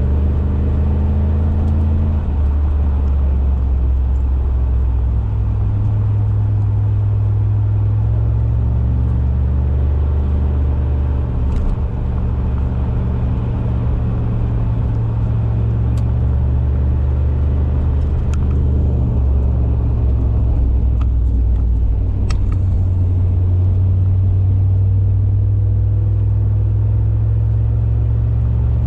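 2002 Cadillac DeVille's Northstar V8 heard from inside the cabin while driving: a steady low exhaust note through a Thrush welded performance exhaust with the resonator deleted, its pitch shifting a few times with engine speed. A few faint clicks stand out over it.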